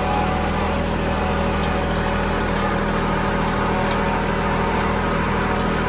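Kubota L3901 tractor's diesel engine running steadily at an even speed as the tractor drives along.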